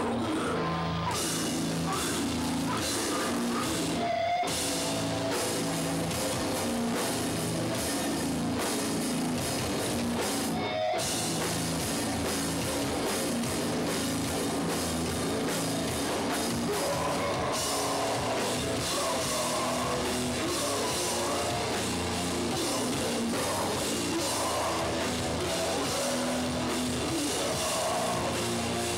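Hardcore punk band playing live: distorted guitars, bass and drums, with two brief breaks in the music about four and eleven seconds in.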